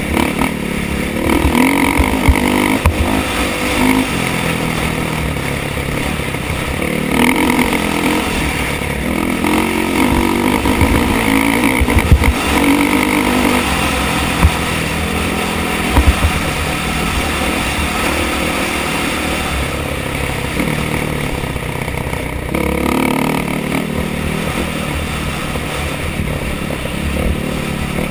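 Single-cylinder four-stroke enduro motorcycle engine riding a rough dirt trail, its revs rising and falling as the throttle opens and closes. A few sharp knocks and clatter stand out over the engine, loudest around the middle.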